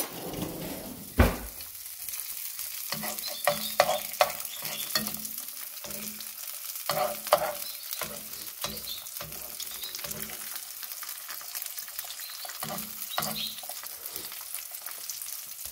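An egg frying in vegetable oil in a pan, with a steady sizzle. A metal spoon works in the pan, giving repeated clicks and scrapes against it, with one sharp knock about a second in.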